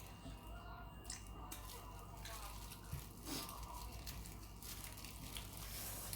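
Eating spicy braised seafood: faint wet chewing and squelching, with scattered short crunches and tearing sounds at irregular moments.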